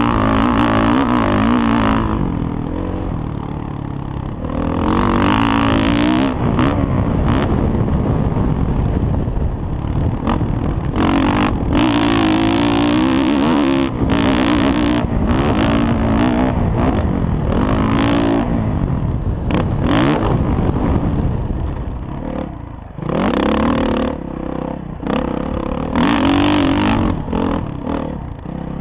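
Motocross bike engine under a riding rider, revving up and down as the throttle is opened and closed through the track's hills and turns, with short rattles and buffets; the engine backs off to a lower level about three quarters of the way through before revving up again.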